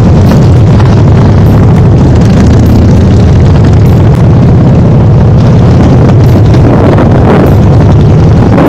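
Harley-Davidson motorcycle engine running loudly while the bike rides along in traffic, with wind noise on the microphone.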